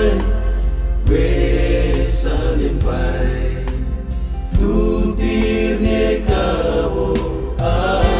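Male vocal group singing a song in harmony, several voices holding and sliding between long notes together, over instrumental backing with a steady low bass.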